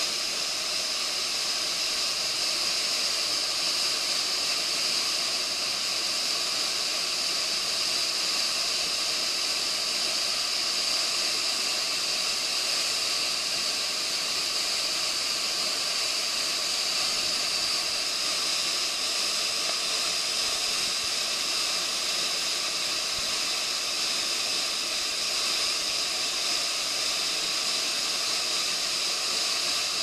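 Waterfall pouring down a steep rock face: a steady rush of falling water with a bright hiss.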